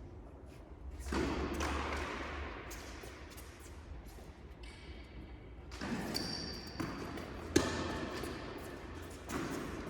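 Tennis ball bouncing and being struck by rackets during play on an indoor court, with one sharp racket hit about three-quarters of the way through.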